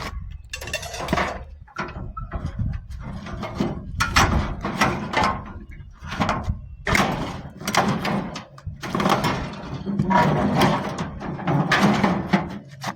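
Pieces of scrap metal being loaded and stacked on a truck bed: a series of clanks, knocks and scrapes, roughly one every second or two.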